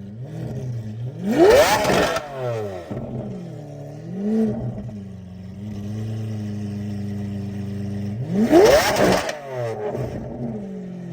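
Lamborghini Aventador SV's 6.5-litre V12 with a Ryft aftermarket exhaust being revved: two sharp blips that climb and fall back quickly, one about a second in and one near the end, with a smaller blip and a steady held rev between them.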